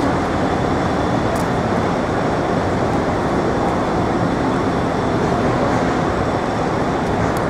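Steady city street noise: a constant rush of traffic with no single vehicle standing out, and a couple of faint ticks.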